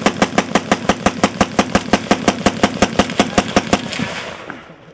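A long burst of fully automatic gunfire, a rapid even string of shots at about seven rounds a second. It stops about four seconds in, and the echo fades out after it.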